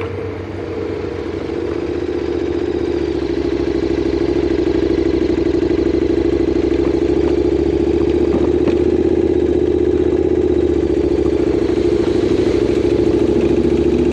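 Motorcycle engine running steadily at low revs, close to the microphone, growing louder over the first couple of seconds and then holding even.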